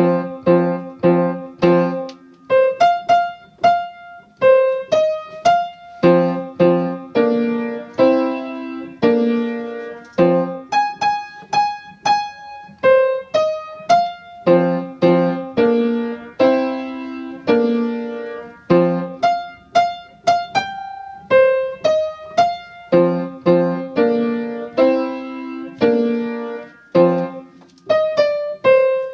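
Wurlitzer piano played with both hands: a steady rhythm of struck chords with a short melodic riff repeated between them, the whole piece played through from the beginning.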